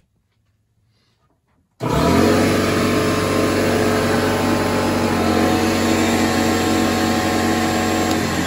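Several electric appliances running off an inverter switch on together about two seconds in and run steadily with a loud humming whir. This is a deliberate surge load on the 12 V lithium iron phosphate battery, which is drawing about 350 amps.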